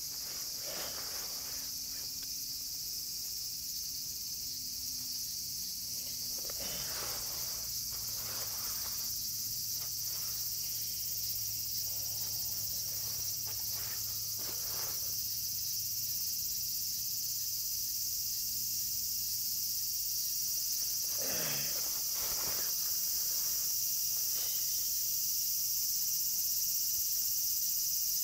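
A steady, high-pitched chorus of insects chirping. A few brief handling noises come through, about seven, fourteen and twenty-two seconds in.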